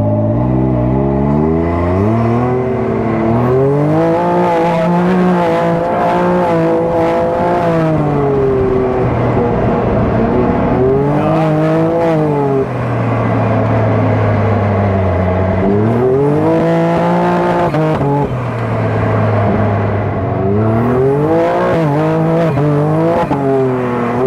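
1000cc dune buggy's engine revving up and down as it is driven over sand, its pitch climbing and dropping several times with the throttle, over a steady rush of wind.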